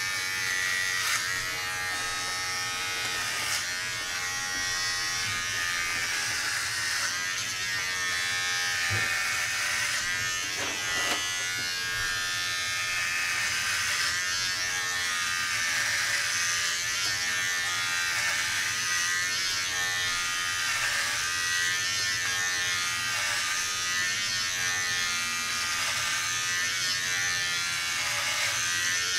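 Braun All-in-One Trimmer 3 (MGK3220) cordless clipper buzzing steadily as it cuts short hair on a head, its pitch wavering as the blades move over the scalp.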